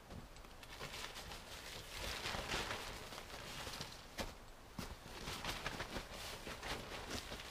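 Footsteps in snow, with the rustle of a tarp being handled and adjusted on its poles.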